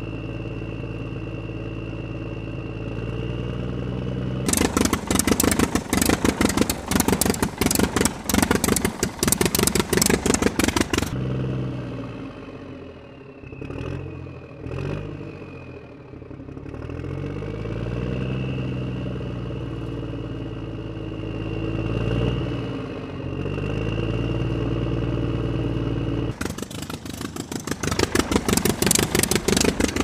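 Vehicle engine running, its pitch rising and falling as it revs. Twice it gives way to loud, rapid clattering: from about four seconds in to about eleven, and again in the last few seconds.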